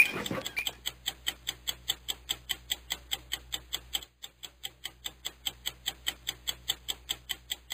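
A single beep from a CPR Ezy compression-feedback device right at the start, the last of its 100-per-minute metronome beeps. Then comes a fast, even ticking, about five ticks a second, with a faint low hum under it for the first half.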